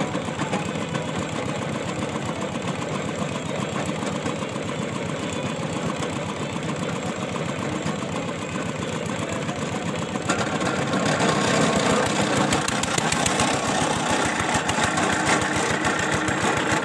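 Engine of a water-well boring rig running steadily with a rapid even beat, growing louder and harsher about ten seconds in.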